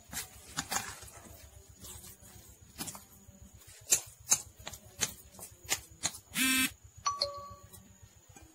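A spoon knocking and scraping against a bowl while stirring batter, in irregular sharp clinks. About six and a half seconds in comes a short, loud buzzing tone, followed by a brief ringing tone.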